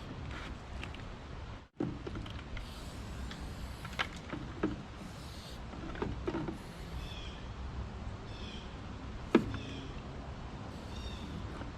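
Yanmar mini excavator running steadily with hydraulic whines, and several sharp metallic knocks and clanks from the machine at work, the loudest about nine seconds in.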